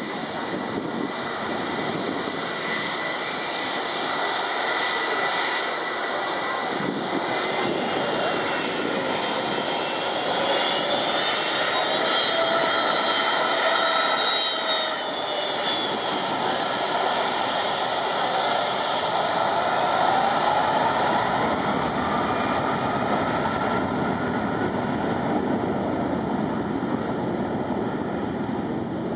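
Boeing 757 airliner's twin jet engines running as it moves along the runway past and away: a steady loud jet rush with fan whines that rise and fall in pitch.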